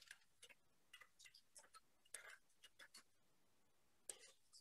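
Near silence with a few faint, scattered clicks and taps of a serving utensil and plate while mashed potatoes are spooned out.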